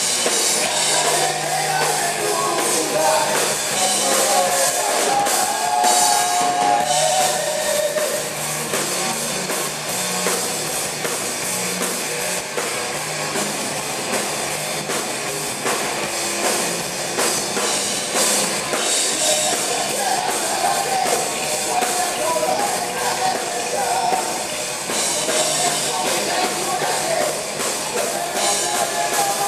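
Heavy metal band playing live, with distorted electric guitars, bass and a drum kit. A singer's voice comes over them through much of the first third and again in the last third. The recording has little deep bass.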